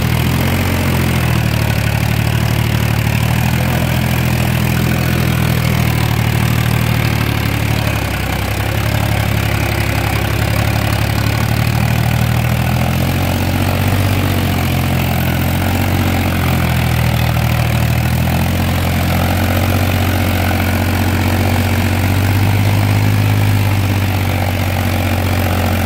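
Tractor's diesel engine running steadily as the tractor works through a flooded, muddy paddy field, heard close up from the driver's seat beside its upright exhaust.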